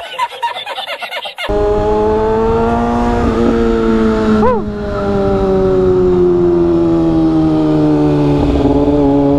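A man laughs briefly, then a Kawasaki Ninja ZX-6R's inline-four engine runs steadily under way, heard from the rider's seat. The note dips briefly about four and a half seconds in, then slowly falls in pitch as the bike eases off.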